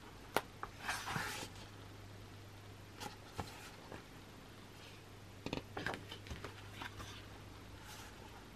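Glossy pages of an album photobook being turned by hand: a few brief paper swishes and light taps and clicks, scattered, the loudest swish about a second in, over a low steady hum.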